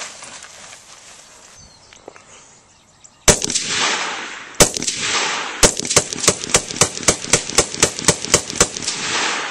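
Rock River Arms AR-15 rifle fired semi-automatically: two single shots about a second apart, then a rapid string of about twenty shots at roughly five a second, each with a short outdoor echo.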